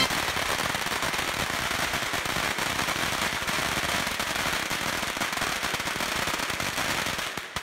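A hanging string of Chinese firecrackers going off in a fast, continuous crackle of small bangs, stopping abruptly near the end.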